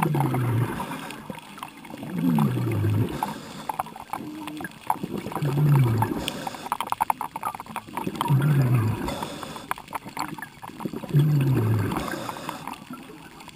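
A diver breathing through an air regulator underwater: a gurgling rush of exhaled bubbles about every three seconds, each with a low falling rumble.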